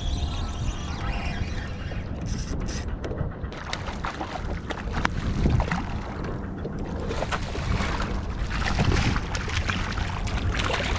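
Wind buffeting the microphone and water sloshing against a kayak hull, with scattered splashes; near the end a fish splashes at the surface beside the kayak as it is released.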